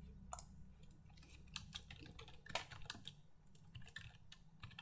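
Faint, irregular keystrokes on a computer keyboard.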